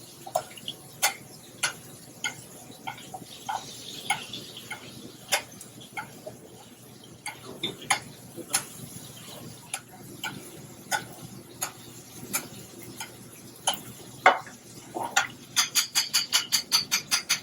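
Pan of black sea bass being basted with butter: scattered sharp clicks and pops of the spoon and hot fat against the pan over a faint sizzle. Near the end comes a quick run of about a dozen clicks, several a second.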